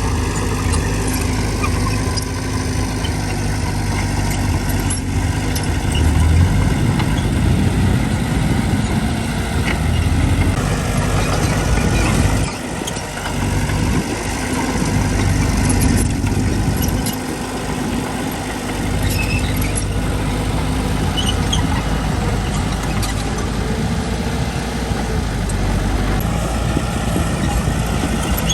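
Heavy diesel engine of construction machinery running steadily, its pitch and load swelling and easing a few times, with scattered small knocks and clicks.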